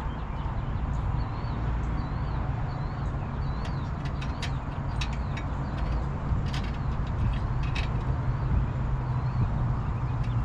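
Steady low rumble throughout, with a small bird chirping a short repeated call several times over the first few seconds and a handful of sharp clicks in the middle.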